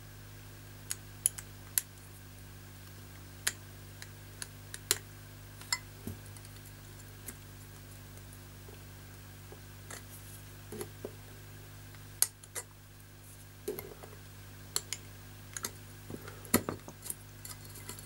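Scattered small clicks and taps of a thin metal tool against a hair dryer's plastic fan and metal motor housing as the fan is pried at and the assembly is handled, over a faint steady low hum.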